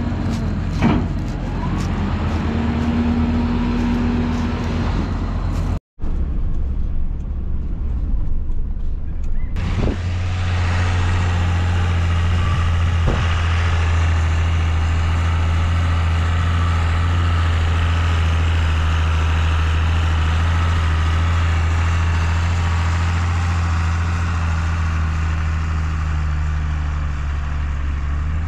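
Machinery in a field for the first few seconds. After a cut, a steady low engine drone heard from inside a vehicle's cab sets in about ten seconds in and holds to the end.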